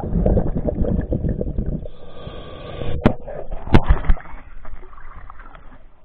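Water churning and bubbling around an underwater camera as a diver comes up to the surface, loudest in the first two seconds, with two sharp knocks a little past halfway.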